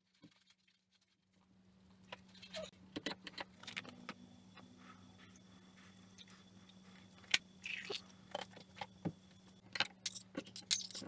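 Kitchen utensil handling: a spoon and dishes give scattered clicks, knocks and clinks, busiest near the end as banana slices are scraped off a plate into a blender jar with a spoon. A low steady hum runs beneath.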